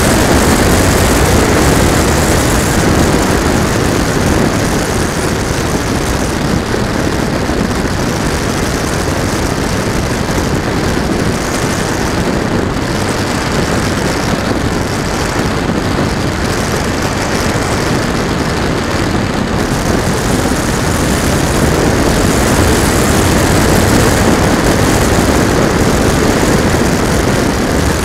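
Steady loud rush of wind and airflow over a camera mounted under a flying radio-controlled model plane, with its motor and propeller running underneath. The noise swells slightly near the start and again toward the end.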